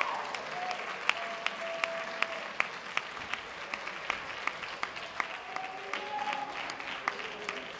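Audience applauding in an auditorium, with one nearby clapper's sharp, evenly spaced claps standing out over the crowd. The applause thins gradually toward the end.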